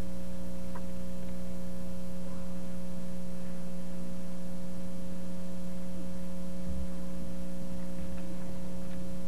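Steady electrical mains hum, an unchanging low drone with several overtones.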